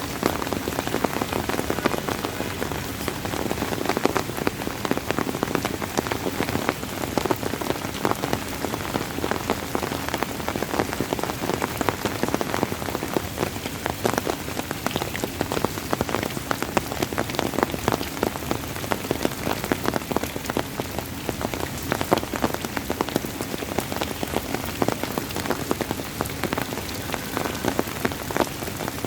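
Steady rain falling and pattering on a surface, with many individual drops ticking in a dense, even shower.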